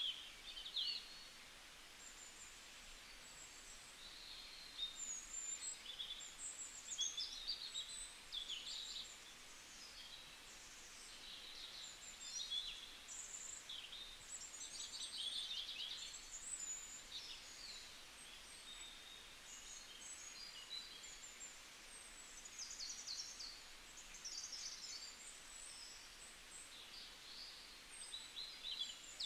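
Small birds chirping, with many short, high calls and quick trills, faint over a low steady hiss.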